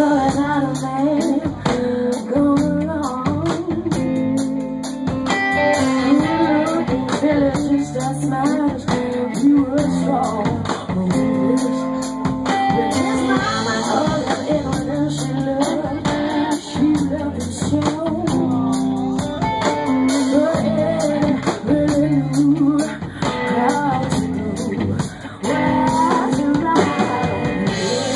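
A live band playing a blues-rock song, with guitar, drum kit and a singing voice.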